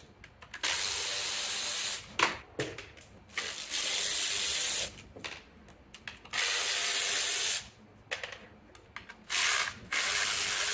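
Cordless power tool running in several short spells of about a second each, with small knocks between them, unscrewing the T30 Torx bolts that hold the Intelligent Servo Module to a Mercedes-Benz 722.9 automatic transmission.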